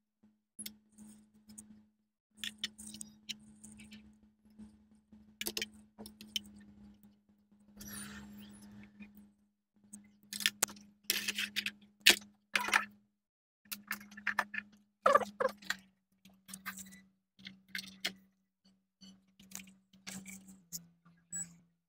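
Scattered small clicks and taps of multimeter probes and hand tools against a circuit board and workbench, busiest in the middle, over a low electrical hum that drops in and out.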